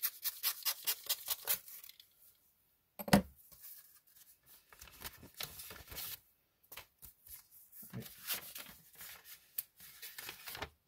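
Scissors snipping rapidly through a mail package's tape, about six snips a second for the first two seconds. A sharp thump comes about three seconds in, then intermittent rustling and crinkling of the packaging as it is opened.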